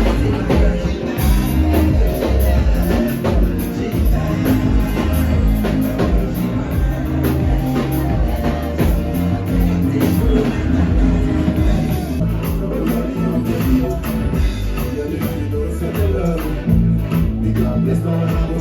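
Loud music with singing and a steady drum beat.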